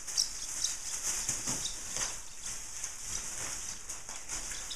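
Thin clear plastic bag rustling and crinkling as it is handled and pulled open, in irregular crackles.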